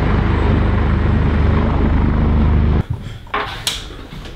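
Helicopter flying over, its rotor chop loud and steady, cut off abruptly a little under three seconds in. After that come quieter knocks and rubbing.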